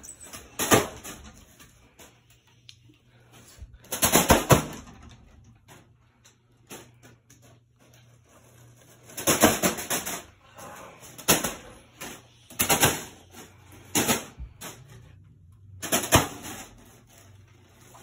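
A spinning ceiling fan's blades slapping a foil balloon, in about seven sharp bursts of rapid clatter, some over half a second long, over a low steady hum. The clatter almost sounds like fireworks, as if the balloon is about to pop, but it does not.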